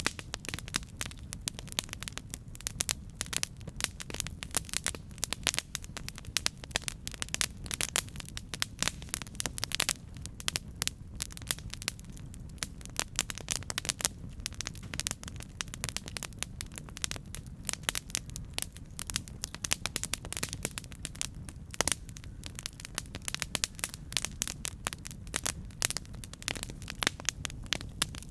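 Campfire burning with constant irregular crackling and popping over a low steady rumble of the flames.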